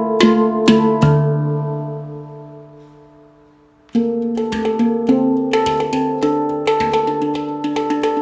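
Handpan tuned to D Kurd 9 (low D ding, A3 to A4 notes), played with the hands. A few notes and the low ding are struck, then left to ring and fade for about three seconds. About four seconds in, a quick rhythmic run of notes starts again.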